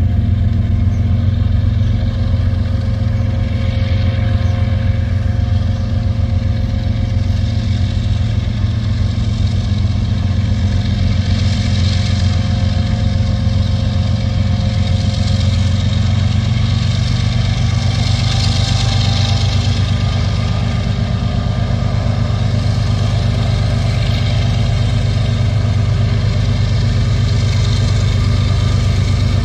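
Diesel locomotives of a freight train running toward and past the track side, a steady low engine rumble that holds level throughout, with a faint hiss rising and falling twice.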